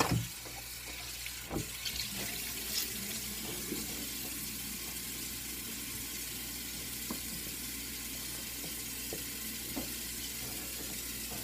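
Tap water running steadily as a dog is rinsed, with a few faint knocks in the first few seconds.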